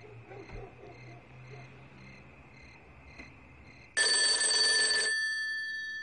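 Insects chirping in an even rhythm, then about four seconds in a black rotary desk telephone's bell rings once for about a second, the ring fading away after it stops.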